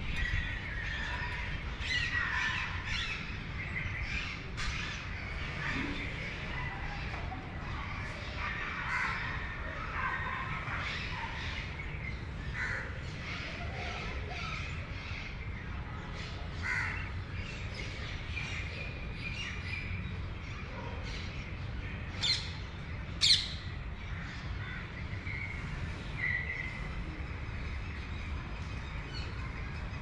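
Crows cawing and other birds calling on and off, with two short, sharp high calls about three-quarters of the way through standing out as the loudest. A steady low rumble runs underneath.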